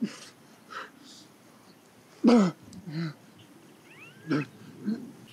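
A few short vocal sounds, each sliding down in pitch, the loudest a little over two seconds in, with a couple of faint high chirps just before four seconds.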